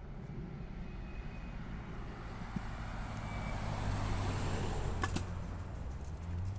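A bus passing close by on the road: tyre and engine noise swell to a peak about four seconds in and then ease off, over a low engine hum. A couple of sharp clicks come just after five seconds.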